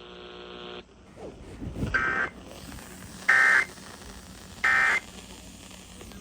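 Emergency Alert System end-of-message data bursts: three short, identical electronic screeches about 1.3 s apart, the digital code that closes the alert. A brief steady buzz sounds in the first second, before the bursts.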